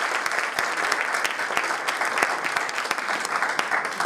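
Audience applauding, a steady mass of many people's hand claps.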